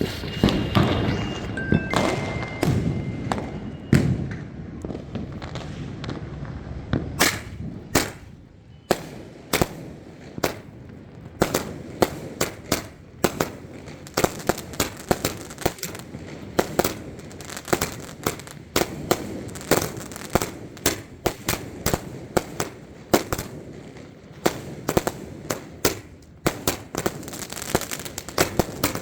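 A 60-shot repeater firework cake firing one-inch shots in rapid succession: sharp bangs about two a second, coming thicker near the end. The first few seconds hold a jumble of noise with a few steady high tones before the shots start.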